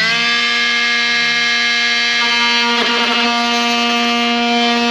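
Cordless power tool running at speed with a steady whine while trimming a plastic truck grille. The pitch wavers briefly about three seconds in, as the blade bites.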